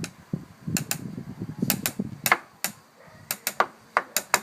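A small child striking a hard surface with a stick or tool: about a dozen sharp, ringing taps at an uneven beat, often in quick pairs.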